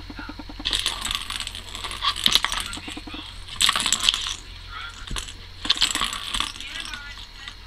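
A plastic 'crazy circle' track-and-ball cat toy clatters as a cat bats the ball around its track. The rattling comes in several bursts.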